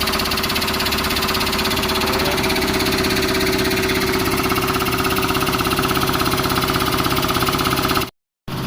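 An engine running steadily at idle with a fast, even pulsing beat. It cuts out completely for a moment near the end.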